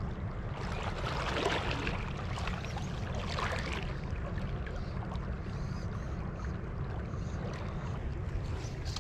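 Shallow creek water rushing past a wading angler's legs: a steady low rumble of flowing water, with two louder splashing swells about one and a half and three and a half seconds in.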